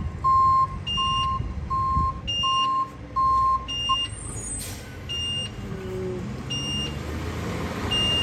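Garbage truck engine running with two reversing alarms beeping: a lower-pitched beep about every 0.6 s that stops about four seconds in, and a higher-pitched beep about every second and a half throughout. A brief hiss sounds near the middle.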